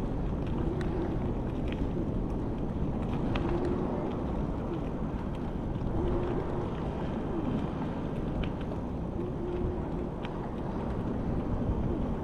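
Steady wind and rolling noise of a ride, picked up by a body-mounted action camera, with a few brief low tones, some sliding in pitch, and scattered faint clicks.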